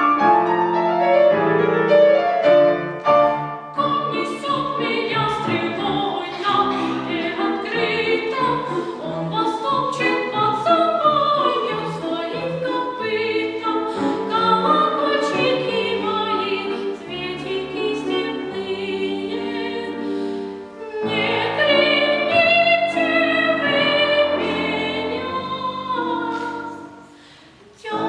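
A child singing in the classical, academic style with piano accompaniment. The music dips briefly about four seconds in and again around two-thirds of the way through, and it goes quiet just before the end.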